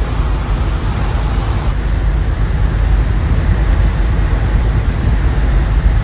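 Wind buffeting the microphone on the open deck of a ship at sea: a loud, steady low rumble with a hiss above it.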